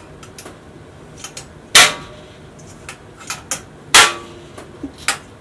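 A stainless steel bucket fermenter's dome lid being fitted and clamped shut: sharp metal snaps with a short ring. Two loud ones come about two seconds apart, a softer one near the end, and light clicks fall in between.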